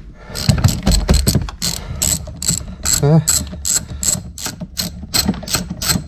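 Hand ratchet with a T30 Torx bit clicking in a quick, even run, about four or five clicks a second, as it undoes the steering-wheel airbag bolts.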